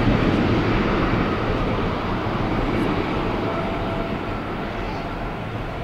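Airbus A320-214's CFM56-5B turbofan engines at takeoff thrust as the jet accelerates down the runway: a steady, deep jet noise that slowly fades as the aircraft moves away.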